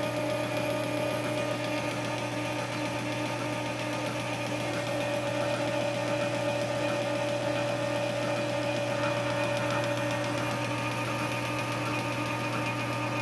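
Metal lathe running steadily under power feed while a boring bar takes a slow finishing cut in the bore of a drive sprocket: a steady hum with a few fixed tones.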